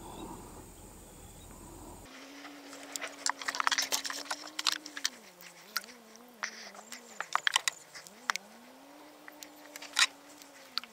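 A motor's steady hum whose pitch dips and recovers several times, as with throttle changes, with scattered sharp clicks and knocks on top, thickest about a second after the hum starts, and one loud knock near the end.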